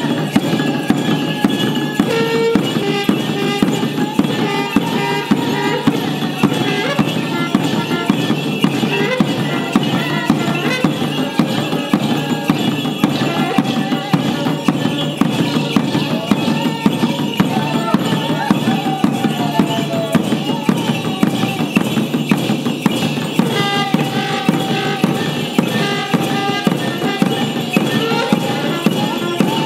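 Mapuche kultrun drums beaten with wooden sticks in a steady driving rhythm, with jingle bells shaking along with the strokes. A wavering melodic line sounds above the drumming.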